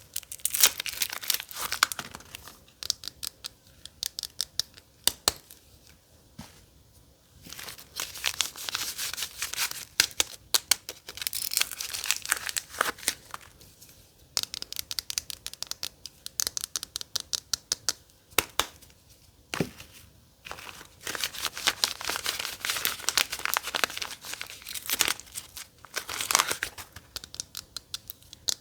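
Soap packaging being torn open and crinkled by hand: runs of sharp crackles and rips in bursts, with short quieter pauses between.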